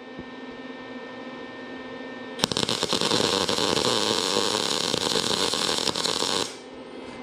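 A faint steady hum for the first couple of seconds. Then a MIG welding arc crackles steadily for about four seconds as a weld is run on thin car-body sheet metal, stopping abruptly.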